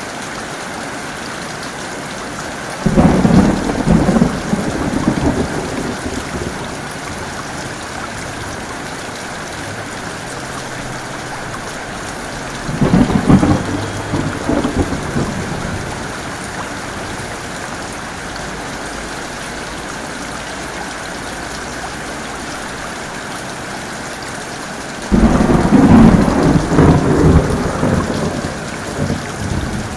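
Heavy rain falling steadily, with three claps of thunder: about three seconds in, near the middle and near the end. Each starts suddenly and rumbles away over a few seconds.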